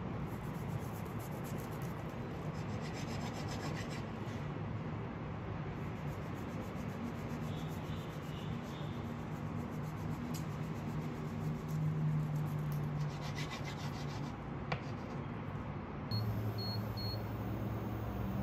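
A blunt ceramic knife sawing back and forth through a seaweed-wrapped tofu roll on a bamboo cutting board, the dry nori making rasping strokes in several runs. The knife is not sharp enough, so it has to saw rather than slice cleanly. Near the end come three short high beeps.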